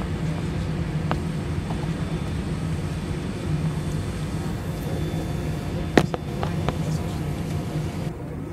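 Airbus A320 cabin noise while taxiing: a steady low hum from the jet engines at taxi power. A sharp click comes about six seconds in.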